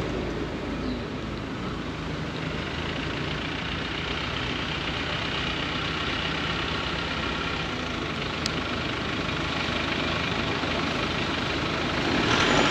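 City street traffic: car engines running nearby over a steady hiss, growing louder near the end.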